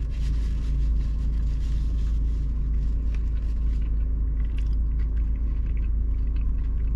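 Car engine idling, a steady low rumble heard inside the cabin, with faint chewing clicks in the second half.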